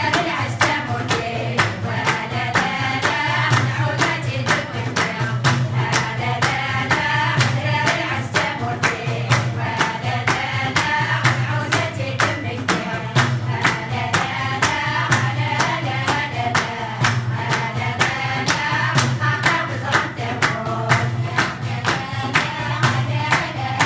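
A group of women singing together as a choir, with steady rhythmic handclapping keeping the beat.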